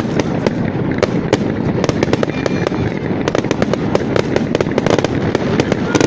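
Fireworks going off: a dense, continuous barrage of sharp bangs and crackles, many per second, over a steady rumble.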